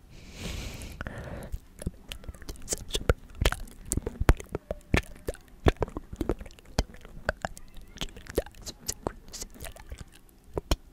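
Inaudible ASMR whispering very close to a microphone: breathy whispering at the start, then a steady scatter of sharp wet mouth clicks and lip smacks.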